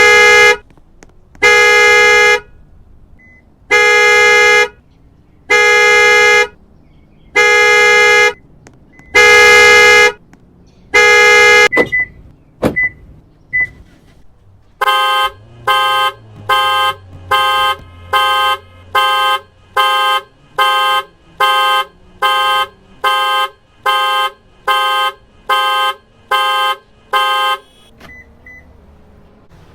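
Car alarm sounding the car's horn: long blasts about once every two seconds, then after a short break a faster run of short horn blasts, about two a second, stopping near the end.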